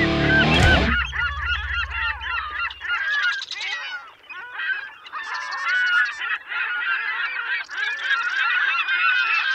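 Electric-guitar music stops about a second in. It gives way to a large flock of birds calling over one another: many short, rising-and-falling honking calls, some of them raspy, in a dense continuous chorus.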